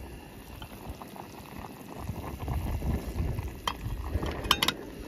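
A metal pot of food bubbling at the boil, with a few light metallic clinks from its lid, the clearest about four and a half seconds in.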